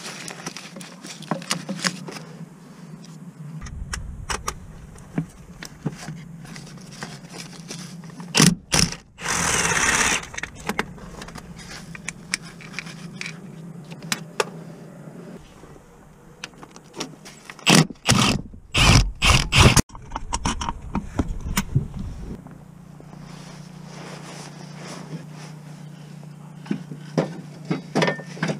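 Metal tools and bolts clinking, knocking and scraping as gearbox mounting bolts are worked out and parts handled. There is a loud rushing burst lasting about a second and a half about nine seconds in, and a cluster of loud knocks around eighteen to twenty seconds in.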